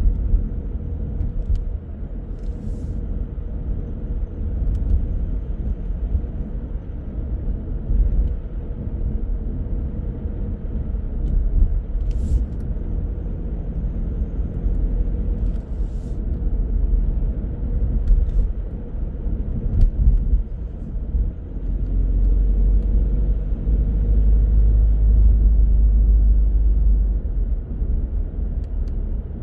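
Car driving through city streets: a steady low rumble of engine and tyre noise, with a few faint ticks. The rumble grows heavier for several seconds about three-quarters of the way through, then eases.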